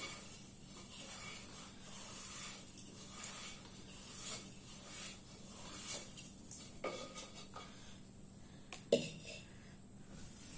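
Faint scraping and light clinks of things being handled, now and then, with a sharper knock about nine seconds in.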